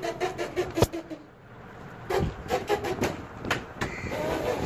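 Young goat kids bleating in three wavering, quavering calls, with a sharp knock or two among them.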